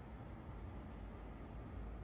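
Faint steady ambient noise with a low rumble that swells slightly near the end.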